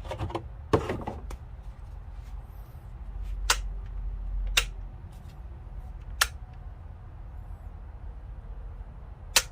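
Handling noise from a torque wrench: about five sharp, separate clicks and knocks spread over several seconds as the tool is turned over and its flex head is moved.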